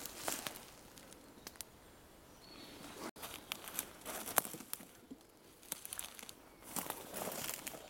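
Hedgehogs rustling through dry leaf litter: irregular crackles and clicks that come in clumps at the start, about four seconds in, and again near the end.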